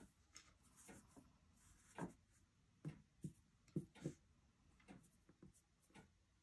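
Faint handling sounds of crochet: a crochet hook and yarn being worked by hand, giving soft rubs and a few scattered light clicks at irregular intervals against near silence.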